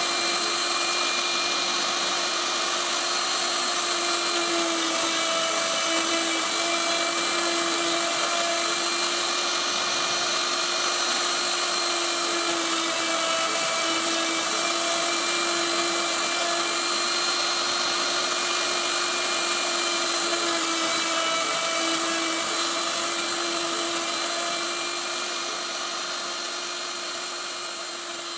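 Spindle of a homemade CNC wood router running at a steady high whine as its bit mills letters into a board, with the hiss of the cut. The pitch dips briefly a few times, and the sound fades out near the end.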